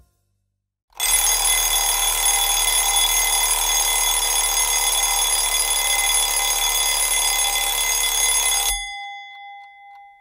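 An alarm clock's bell ringing loudly and without a break for about eight seconds, starting about a second in and then stopping. After it a clock ticks faintly, about twice a second.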